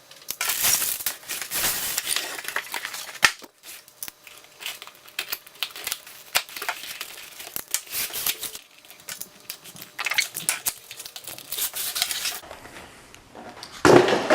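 Packaging being unwrapped: plastic wrap and cardboard crinkling, rustling and tearing, with scattered clicks and knocks of parts being handled.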